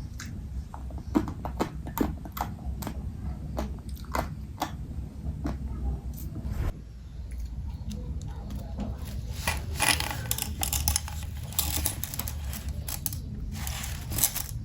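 Crunchy chewing: a series of short, sharp crunches and clicks. The background changes abruptly about halfway through, and denser crunching follows near the end.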